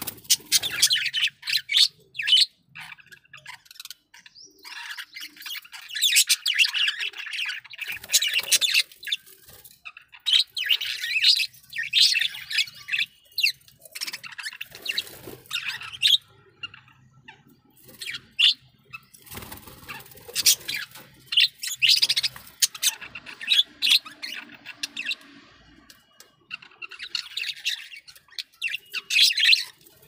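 Several budgerigars chirping and chattering in quick bursts of high notes, with short pauses between bursts.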